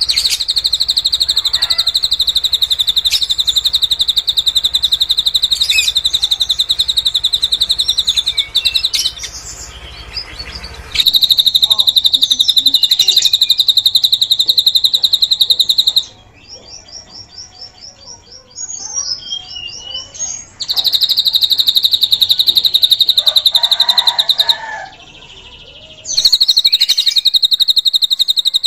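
Drongo (srigunting) singing a repertoire learned from the cililin: long stretches of a very rapid, high trill, broken by short breaks of varied chirps and a quick series of repeated notes.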